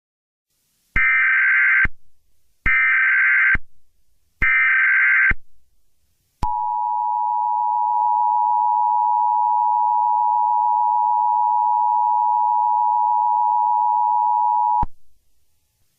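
Emergency Alert System tones: three short bursts of buzzy SAME header data, about a second each and evenly spaced, then the steady two-tone EAS attention signal held for about eight seconds before it cuts off.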